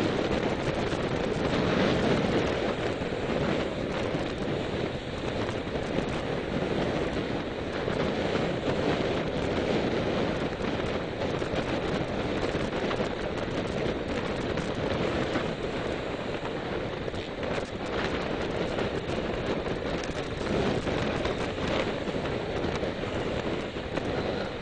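Wind rushing over the microphone while moving along the road: a steady rushing noise with a few small clicks scattered through it.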